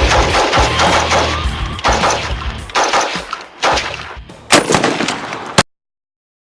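Rapid gunfire, shot after shot with heavy echo, with a louder shot about four and a half seconds in, then cutting off suddenly.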